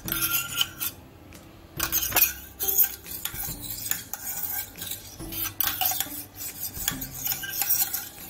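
Steel spoon scraping and clinking inside the stainless steel barrel of a murukku press as it is greased with oil, with irregular metal clicks and knocks as the press is turned in the hands.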